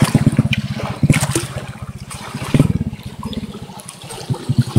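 Shallow river water splashing and lapping as a baby monkey paddles through it, over a low rumble. There are two louder splashes, about a second in and about two and a half seconds in.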